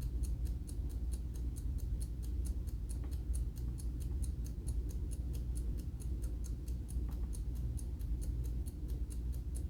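Seiko DiscMate hand-wound mechanical alarm clock ticking steadily, about five ticks a second, over a low steady hum.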